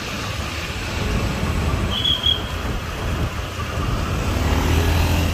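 City street traffic heard while driving along it: steady engine and road rumble, with a brief high-pitched chirp about two seconds in.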